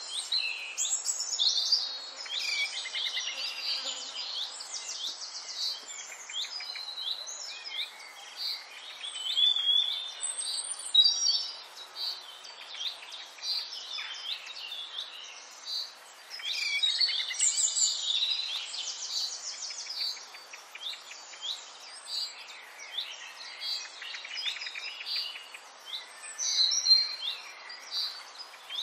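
Songbirds chirping and trilling: many short, high calls with quick rising and falling notes, in overlapping bursts of song.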